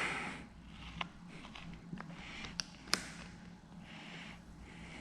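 Faint handling sounds as hands work wet paint protection film into place on a car bumper: soft rubbing and a few light clicks over a steady low hum.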